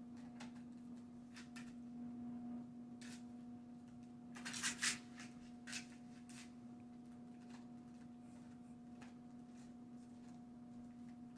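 Dog gnawing a rawhide bone: scattered faint crunches and clicks of teeth on the rawhide, with a louder cluster of crunches about four to five seconds in. A steady low hum runs underneath.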